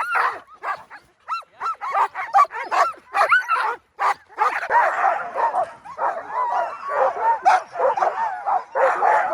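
Sled dogs (Alaskan huskies) yipping and barking. Separate sharp calls come first, then from about halfway many dogs join in a dense, overlapping chorus of high yips and howl-like cries.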